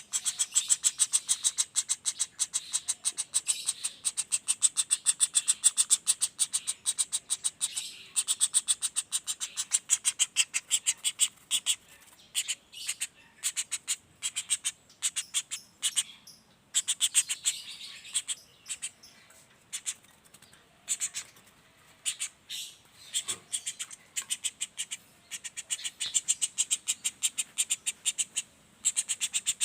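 Juvenile common flameback woodpecker (pelatuk bawang) giving a fast rolling rattle call of sharp, high notes at about five a second. Through the middle the notes break into shorter runs with gaps, then the run speeds up again near the end.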